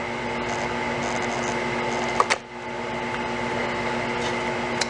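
Drill press's electric motor running with a steady hum, with a sharp click about two seconds in, a brief dip in level, and another click near the end.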